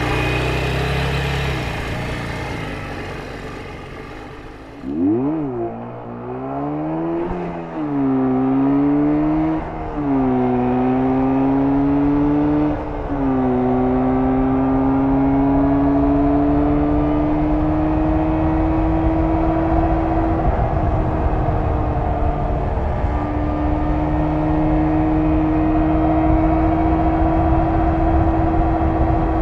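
1994 Jawa 350 type 638 two-stroke twin engine on its stock exhaust, running off the throttle and fading for a few seconds. About five seconds in it accelerates hard, its pitch climbing and dropping three times through upshifts, then settles into a steady cruise with a short lift off the throttle partway through.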